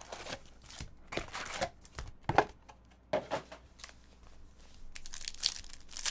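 Foil trading-card pack wrappers crinkling and rustling as a stack of Panini Contenders Football packs is handled. Near the end comes a denser crinkling as one pack's wrapper is torn open.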